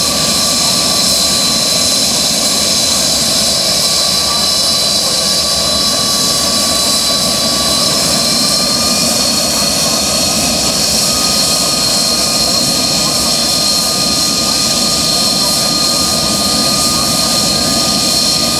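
Aircraft turbine engine running with a steady high whine over a loud rush of noise. The pitch steps up slightly about eight seconds in.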